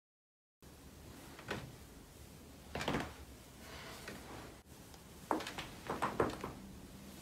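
After about half a second of dead silence, a few short cracks and knocks over a low room hum during a chiropractic manipulation, the loudest pair about five to six seconds in.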